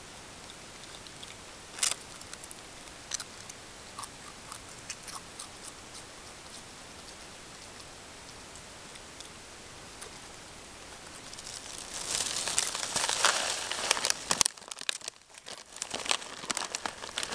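A raccoon crunching Pringles potato chips: a few sharp crisp crunches at first, then a dense run of crackling and crunching in the last third, over a steady hiss.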